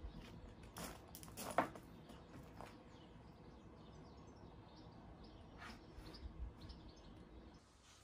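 Quiet garden ambience with a few light knocks and clicks as a drip tray is handled on a garden table, the sharpest about one and a half seconds in, and faint bird chirps.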